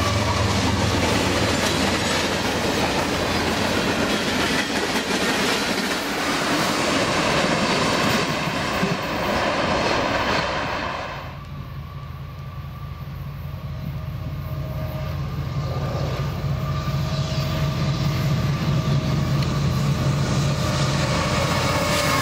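Freight train cars rolling past close by, wheels rumbling and clattering on the rails with thin, steady high squealing tones. About eleven seconds in, the sound cuts to quieter Union Pacific diesel locomotives approaching, their low engine drone growing louder as they near.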